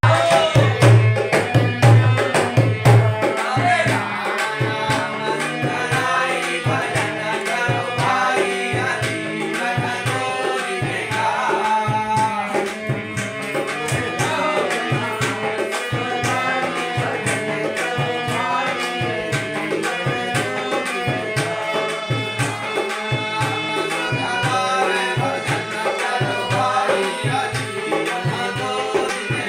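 Hindu devotional song (bhajan): voices singing over a sustained harmonium, with a dholak drum beating a steady rhythm and sharp clicks keeping time. The drum strokes are heaviest in the first few seconds.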